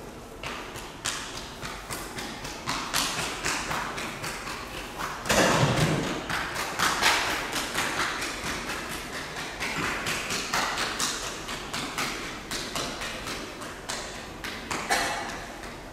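A run of irregular knocks and thuds, roughly one or two a second, with a louder, longer noisy rush about five seconds in.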